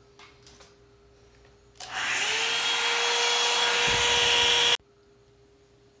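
Revlon 2-in-1 blow-dryer brush switched on: its fan motor spins up with a slightly rising whine and runs with a loud rush of air for about three seconds, then cuts off suddenly. A couple of soft handling clicks come before it.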